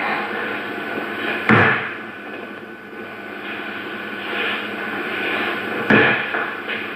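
Two sharp thuds about four seconds apart, the first about a second and a half in, over a steady hiss.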